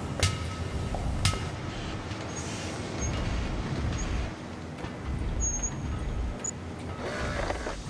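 Two sledgehammer blows on metal, each ringing briefly, in the first second and a half. A low rumbling drone follows, with a few faint high pings.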